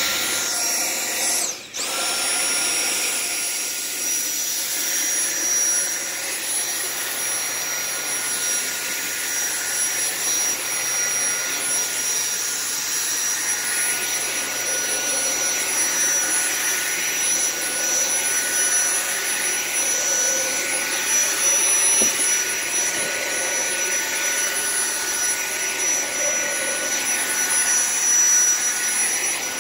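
Dyson V7 cordless stick vacuum running with its motorised brush head pushed back and forth over carpet, a steady high-pitched motor whine. It cuts out for a moment about two seconds in, then spins straight back up.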